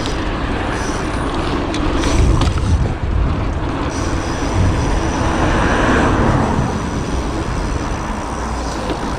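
Steady city traffic rumble heard from a moving bicycle, with wind buffeting the microphone and a faint high whine or squeal.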